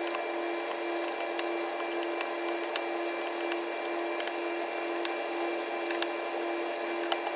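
A steady machine hum over a hiss, with a few faint clicks of an adjustable wrench on an AN fitting being tightened in a vise.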